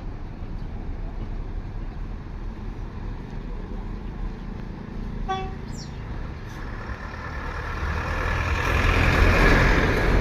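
A bus drawing near, its engine and road noise swelling to the loudest point near the end, while its Basuri V3 multi-tone 'telolet' horn sounds. A short pitched toot with a quick upward squeal comes about five seconds in.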